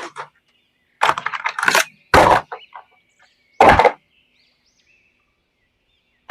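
Toy packaging being handled in four short bursts of handling noise, quiet after about four seconds in. Faint birds chirp in the background.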